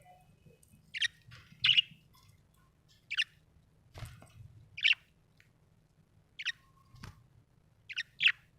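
Budgie (budgerigar) giving short, bright chirps about seven times, spaced irregularly, the last two in quick succession. Two faint knocks fall between the chirps.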